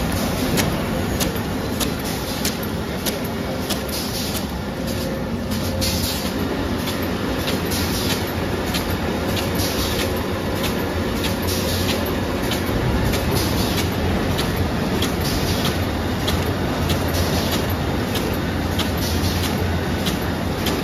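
Automatic pre-coating film laminating machine running: a steady mechanical hum with a sharp tick about twice a second.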